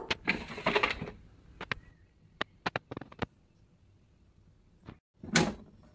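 A short rustle, then a scatter of sharp light clicks and ticks, like handling noise, with a brief pitched voice-like sound near the end.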